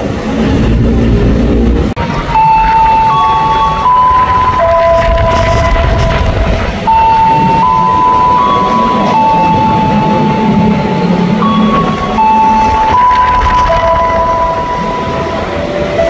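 A loud electronic melody of held single tones stepping up and down in pitch, typical of a station's public-address arrival chime. Under it is the low rumble of an approaching electric commuter train.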